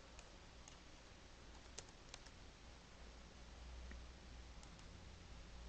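Near silence with a few faint computer mouse and keyboard clicks scattered through it, over a low steady hum.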